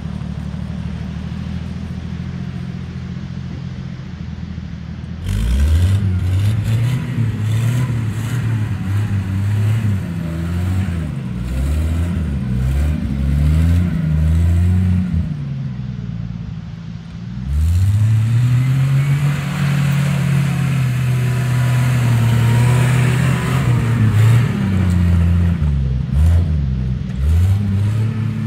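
1966 Ford F350 flatbed truck's engine idling steadily, then revving up suddenly about five seconds in and swinging up and down in pitch as the truck spins circles in the snow. It dips briefly past the middle, then climbs again and holds high for several seconds.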